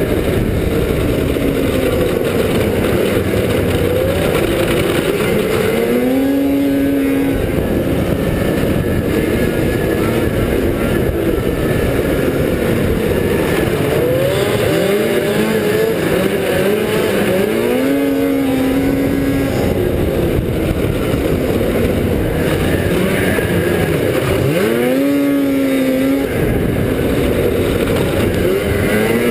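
Arctic Cat F5 Sno Pro race snowmobile's 500 cc two-stroke twin running flat out on board, its pitch dropping and winding back up three times as the rider backs off for corners and accelerates out. Heavy rushing noise underneath.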